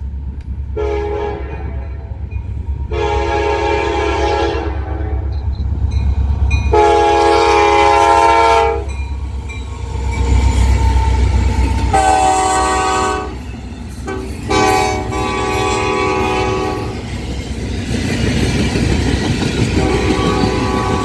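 Locomotive air horn sounding five loud blasts of about two seconds each as a local freight train passes, its pitch shifting with the Doppler effect, then a fainter held note near the end. A steady low rumble of the locomotive and rolling cars runs underneath.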